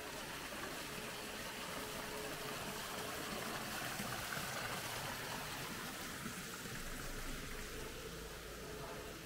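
Small rock waterfall splashing into a pool: a steady rush of falling water that swells about four seconds in and fades toward the end. A faint steady hum lies underneath.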